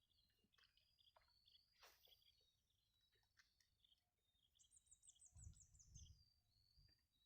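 Faint birdsong: scattered short chirps and whistles from several birds, with a quick run of high trilled notes about five seconds in.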